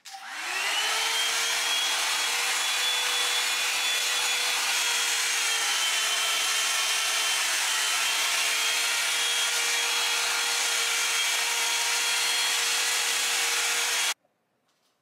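Hot-air round brush (hair dryer brush) switched on: its motor spins up within half a second to a steady whine with a rush of blowing air, then cuts off suddenly near the end.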